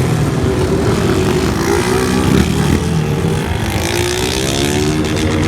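Motorcycle engines running and revving together, their notes rising and falling over one another.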